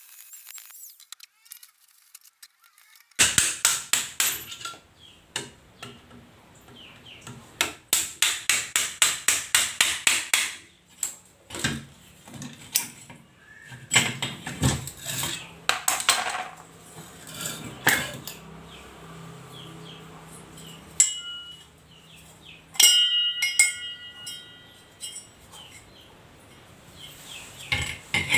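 Repair work on a washing machine: sharp taps and knocks of a tool on metal parts. There are two quick runs of about four to five strikes a second, then scattered knocks and clinks, and one strike that rings on briefly.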